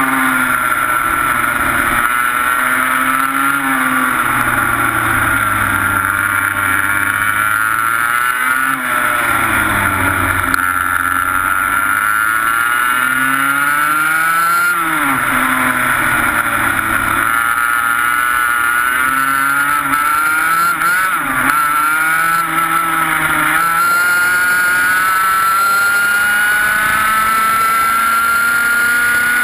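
A 125cc two-stroke TaG kart engine at race pace, its revs dropping under braking into corners and climbing again on the exits several times, then a long steady climb in pitch down the straight near the end.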